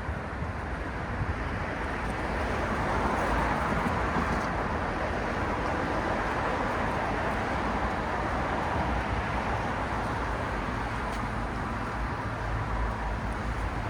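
City road traffic: a continuous wash of tyre and engine noise from passing vehicles, with a low rumble underneath, swelling a couple of seconds in and easing off toward the end.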